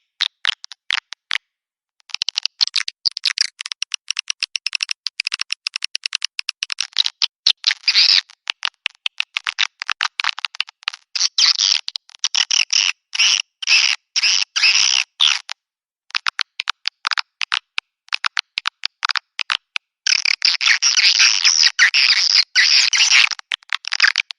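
Swiftlet lure-call recording, the kind played from swiftlet nesting houses to draw birds in: dense, rapid twittering chirps. The chirping breaks off into dead silence for about a second and a half near the start, and briefly about two thirds of the way through.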